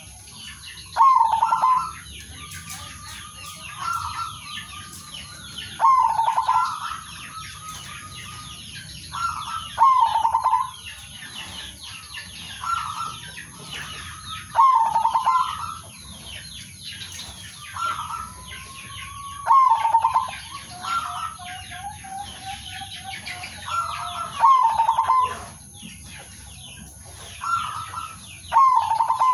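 Male zebra dove cooing, its staccato phrase repeated about every four to five seconds, with softer answering coos from other doves between and a lower rolling trill a little past the middle. Many small birds chirp throughout.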